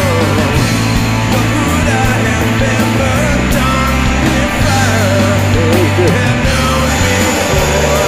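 Background rock music with a steady beat, a bass line and a wavering lead melody.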